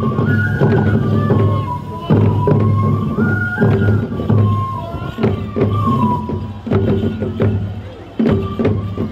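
Japanese folk festival music accompanying a tiger dance: a high bamboo flute melody stepping from note to note over repeated taiko drum strikes.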